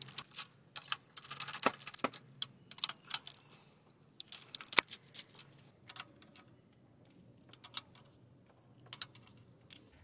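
Ratchet wrench clicking in quick runs with light metal clinks, as spark plugs are loosened and taken out of the cylinder head. The clicking is busiest in the first half and thins to scattered clicks later.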